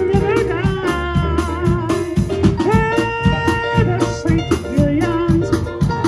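Live band playing a song: a man sings the melody into a microphone over a Nord Electro stage keyboard, guitar and a drum kit keeping a steady beat.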